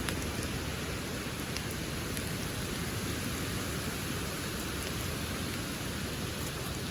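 Pouring rain falling steadily, an even hiss.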